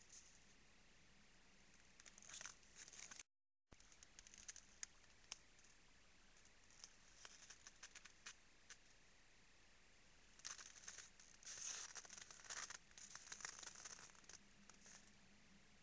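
Faint crackling and crunching of moose feeding and stepping in frozen snow at a salt lick: scattered clicks, then a denser run of crackling in the last third.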